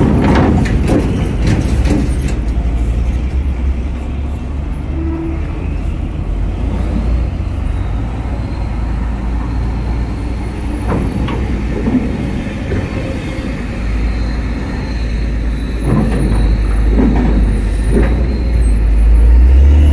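Heavy diesel cargo trucks driving slowly off a ferry ramp: a steady low engine rumble that grows louder over the last few seconds as the next truck comes close, with a few knocks.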